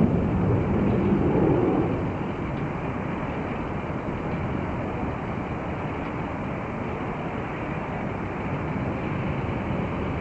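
Rushing jet noise of a regional jet's turbofans during its landing, a little louder for the first two seconds and then steady.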